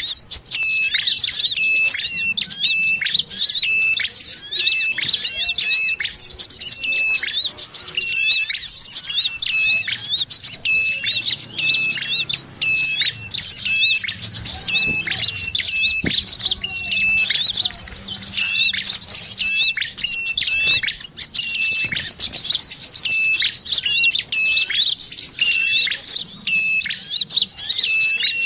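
Bird-lure playback of small birds calling: a dense, high chattering with a short clear note repeating about twice a second. It mixes sogon chatter with the calls of the ashy tailorbird (prenjak kepala merah) and the brown-throated sunbird (kolibri kelapa), used to lure wild birds.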